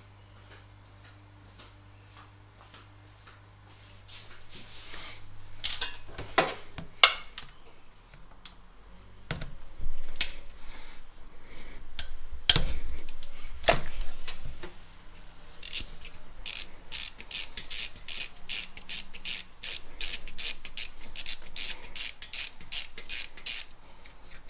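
Socket ratchet backing out the 12 mm bolts of an engine's VTEC spool valve. Scattered clicks and clanks come first. In the last third a steady run of ratchet clicks follows, about three a second.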